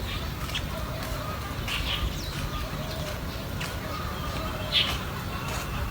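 Short bird calls, a handful of chirps spaced a second or so apart, the loudest near the end, over a steady low background rumble.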